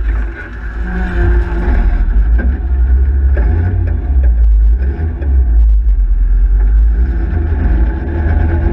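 Engine of a Sprite/Midget club racing car, a BMC A-series four-cylinder, running on track after a spin, heard from an onboard camera in the open cockpit. Heavy wind buffeting on the microphone makes a loud, uneven low rumble beneath the engine note.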